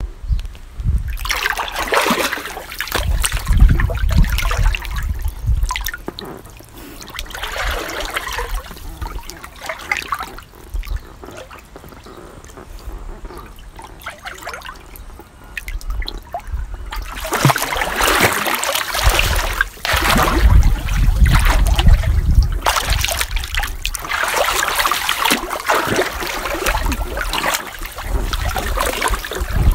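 A person splashing and dabbling in swimming-pool water, in irregular bouts of sloshing and trickling. It goes quieter for several seconds in the middle, then splashes almost without a break through the second half.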